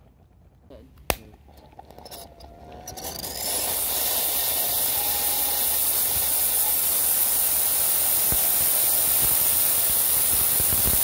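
Tiny electrolysis-fed hydrogen-oxygen rocket engine with a 1.5 mm throat firing. There is one sharp click about a second in, then a hiss that builds over about a second and holds steady and loud as the engine burns with stable combustion.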